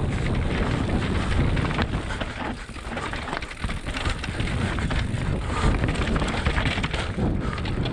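Mountain bike descending a dirt trail, heard from a camera mounted on the rider or bike: wind buffeting the microphone with tyres running over dirt and pine needles and the bike rattling and clattering over bumps. The noise eases briefly about three seconds in.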